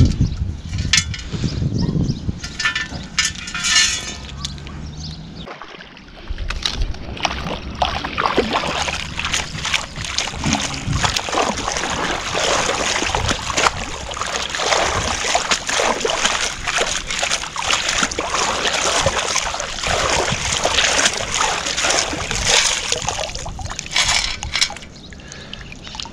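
Perforated steel sand scoop being swished through shallow lake water to sift a scoop of sand. Water sloshes and pours through the holes, with many small rattles and scrapes.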